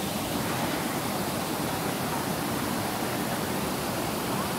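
Steady rush of a shallow mountain river running over rocks.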